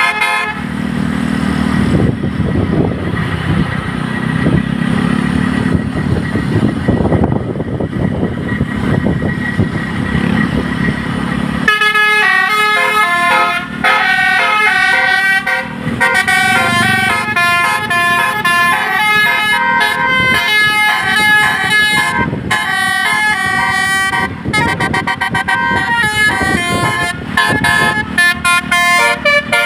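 Bus 'basuri' telolet musical air horn playing a fast melody of stepped notes. It starts about twelve seconds in, after a long stretch of low rumble from the moving bus.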